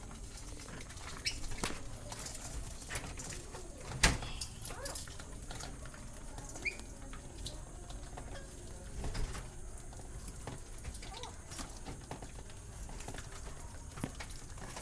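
Pet birds moving about: scattered light clicks, scratches and rustles, with one sharp knock about four seconds in and a single short chirp a little later.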